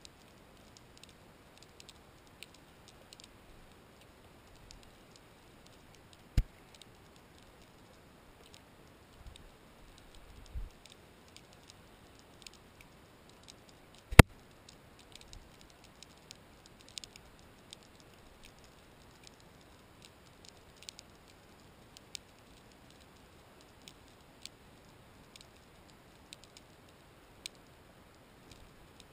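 Underwater sound: sparse faint clicks and crackles scattered throughout, with two loud sharp clicks, one about six seconds in and one about fourteen seconds in, and a brief low thump between them.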